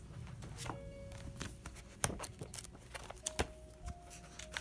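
Paper handling: a softcover workbook is picked up off a table and its pages are flipped, giving light taps, ticks and rustles at irregular moments.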